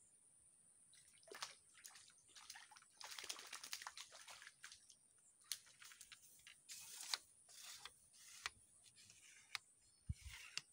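Faint small splashes, drips and plops on a weedy pond surface, scattered irregularly, with a brief low thump near the end.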